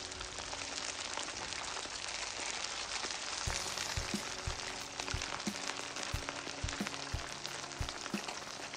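Battered chicken pieces deep-frying in hot oil in a wok: a dense, steady sizzle and crackle from the second fry that crisps the coating. About three and a half seconds in, background music with a steady beat of about two thumps a second comes in under it.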